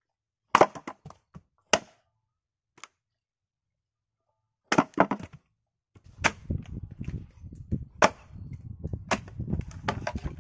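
Firewood being split on a chopping block: sharp knocks of blows on a log. A quick cluster of blows comes about half a second in and another near five seconds. After that come single blows every second or two over a low steady rumble, as the log splits apart.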